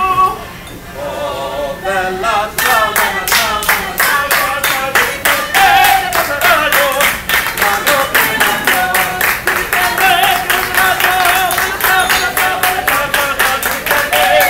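Waiters singing opera unaccompanied. A held note ends right at the start, and after a short pause the singing goes on with steady hand-clapping in time, about three claps a second.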